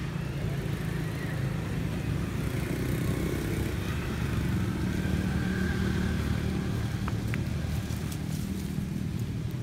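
A motor vehicle engine running steadily nearby: a low, even hum with a faint held tone.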